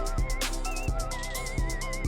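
Background music: a drum beat with low kick hits and fast hi-hats under a wavering high melody.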